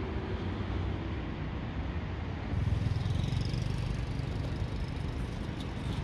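Road traffic: a steady low engine rumble that grows louder about two and a half seconds in.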